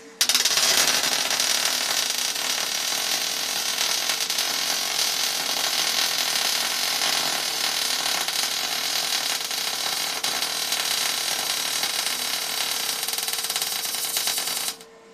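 MIG welder's arc crackling steadily as a weld bead is laid. It starts abruptly just after the beginning and cuts off sharply shortly before the end.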